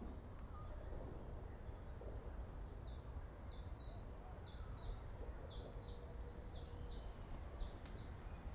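Forest ambience: a steady low wind rumble, with a songbird giving a rapid series of repeated high, falling notes, about three a second, from about three seconds in until near the end.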